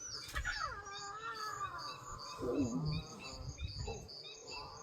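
Lion cub crying: a drawn-out call of about two seconds that falls in pitch and then levels off, followed by a shorter falling call. Small birds chirp in a quick high repeating pattern behind it.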